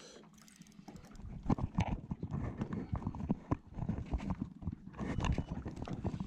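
Irregular knocks and thumps, several a second, starting about a second in.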